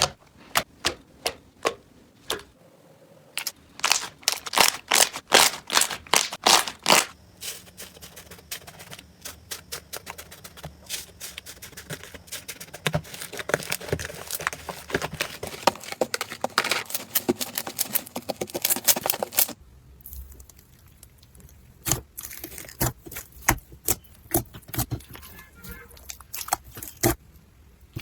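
Hands squeezing and poking slime, making rapid irregular crackling clicks and pops. The clicks are densest through the middle, then the sound changes abruptly about twenty seconds in and the clicks grow sparser.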